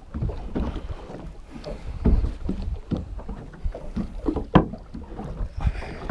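Wind buffeting the action camera's microphone, with a low rumble and irregular knocks and rubbing as a spinning reel is cranked and the rod worked against a hooked fish.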